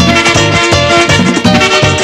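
Merengue band playing an instrumental passage: trombone and saxophones over a fast, steady dance beat.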